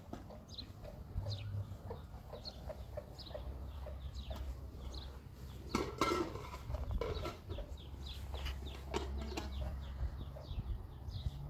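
Chickens clucking, with short, high chirps that fall in pitch repeating throughout and a brief louder sound about six seconds in, over a low steady rumble.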